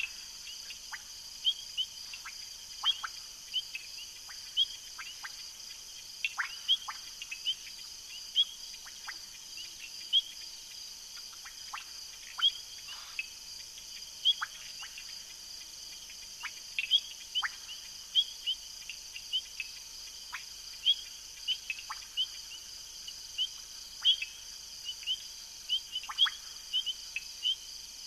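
Night chorus: crickets or other insects keep up a steady high-pitched drone, over which short sharp chirps, typical of frogs, drop quickly in pitch, one or two a second at irregular intervals.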